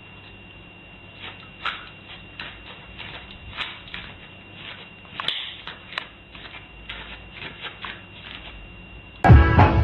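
A quiet run of irregular soft crunches and taps over a faint steady high tone, then loud music cuts in suddenly near the end.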